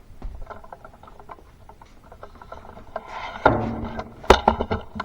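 Clicks and knocks of hard objects being handled, with a louder clunk about three and a half seconds in and a sharp knock a little after four seconds.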